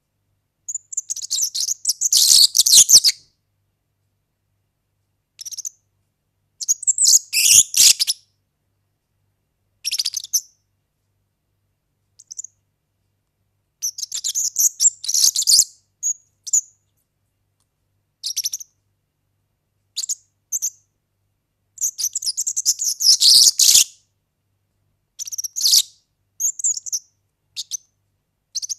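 European serin singing: high-pitched, rapid song phrases of half a second to about three seconds, broken by short pauses.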